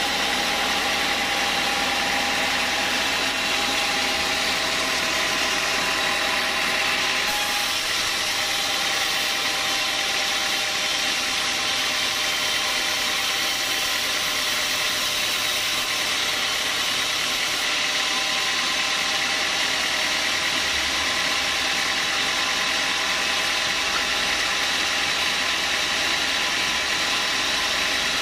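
Band sawmill running steadily as its blade cuts lengthwise through a hard small-leaf acacia log, an even, loud machine noise with a high hiss. A faint tone in it fades out about seven seconds in.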